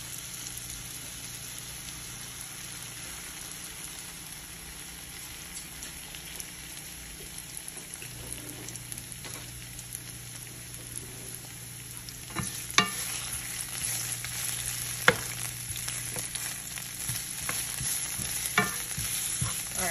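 Sliced red onion rings sizzling steadily in a nonstick frying pan. About twelve seconds in the sizzle gets louder and a spatula starts stirring them, with sharp taps and scrapes against the pan.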